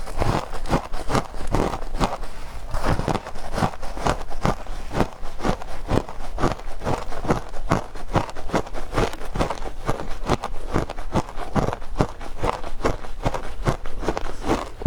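Close-up chewing of frozen matcha ice: a steady run of crisp crunches as the teeth bite and grind the ice, a few crunches a second.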